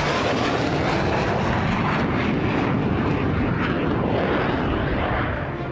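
Jet fighter engine sound effect: a steady, loud rushing roar of a jet in flight.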